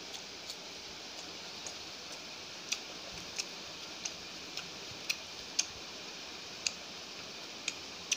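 Eating noises from a person eating curry and paratha by hand: about a dozen short, sharp, irregular clicks, chewing and mouth smacks mixed with fingers tearing the flatbread, over a steady hiss.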